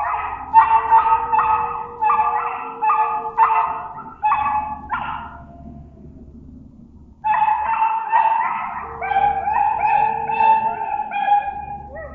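A rapid series of short, high-pitched animal yips and brief howls in two bouts, separated by a pause of about two seconds; the second bout includes a longer call that bends in pitch.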